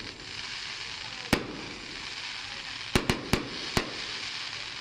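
Aerial fireworks bursting: one sharp bang about a second in, then a quick run of four bangs around three seconds in, over a steady hiss.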